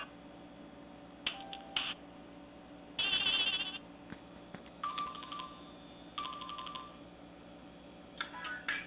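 Short Nokia E5 ringtones and alert tones played through a Nokia 130's small loudspeaker, one after another with pauses between. First comes a brief chime, then a louder warbling trill, then two identical short tone patterns, and a quicker melody begins near the end.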